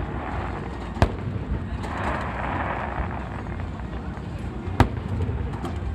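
Fireworks shells bursting: two sharp bangs, about a second in and near the end, with a hissing rush in between.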